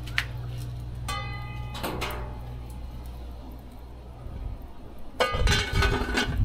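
Aluminium pot lid knocking and ringing against the pot on a wood fire: a single click, a brief ringing metallic tone about a second in, then a loud burst of clattering near the end as the lid is handled.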